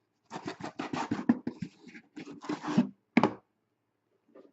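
Hands handling cardboard card boxes from an opened case: a quick run of irregular scratching and scraping, then one short scrape about three seconds in.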